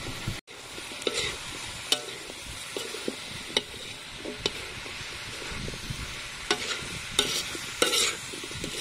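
Metal spatula scraping and knocking against a wok while stir-frying pineapple, carrot and bell pepper pieces, over a steady sizzle of frying. The strokes come irregularly, roughly one every half second to a second.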